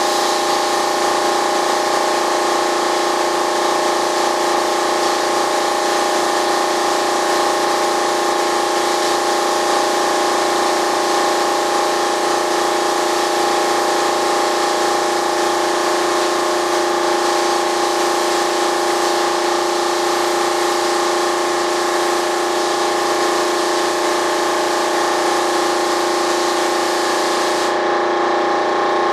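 Air spray gun hissing steadily as it sprays primer onto the model jet's fuselage, over a steady machine hum holding several fixed tones. The hiss stops briefly near the end while the hum carries on.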